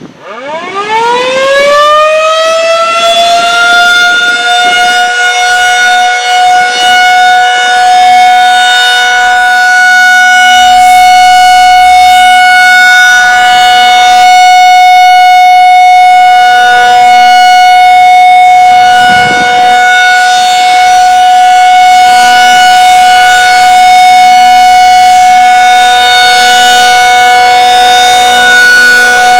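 Federal Signal 2001-SRN tornado siren winding up from a standstill, rising in pitch over about three seconds, then holding a loud, steady two-note tone: the steady alert signal of a routine siren test.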